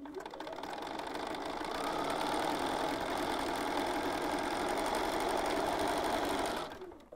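Bernina 570 QE sewing machine stitching a seam, building up speed over the first couple of seconds, running steadily, then slowing and stopping near the end.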